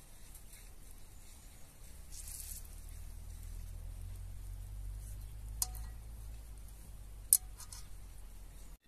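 Chicken wings being laid by hand into hot oil in a nonstick pot: a short sizzle about two seconds in, then two sharp metallic clinks against the pot, under two seconds apart, each with a brief ring; the second is the louder.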